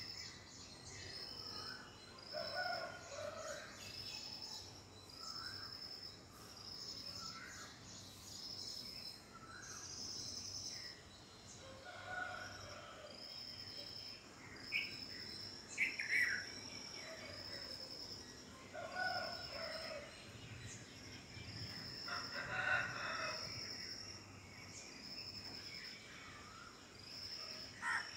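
Several birds calling in the background, over a high-pitched call repeated about every second and a half, with louder, irregular lower calls here and there and a burst of calls near the end.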